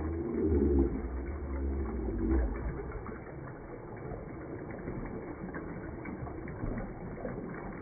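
Toilet flushing: water swirling down into the bowl's drain, with a low rumble that is strongest in the first two and a half seconds and then settles.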